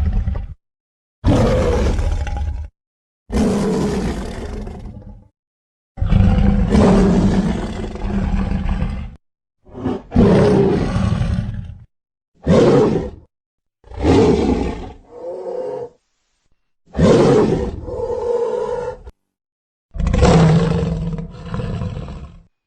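A run of big-cat roar sound effects edited back to back, about nine roars of one to three seconds each, every one cut off sharply into dead silence before the next.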